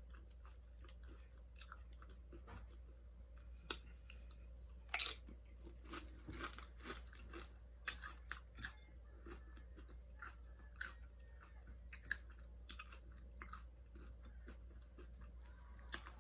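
Crunching and chewing of nacho tortilla chips: irregular crisp crunches all through, the loudest about five seconds in.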